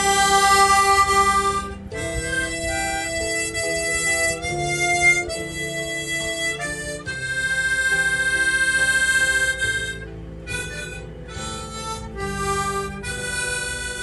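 Instrumental background music: a reedy lead instrument plays a melody of held notes over accompaniment. The longest note runs from about seven to ten seconds in, between shorter phrases.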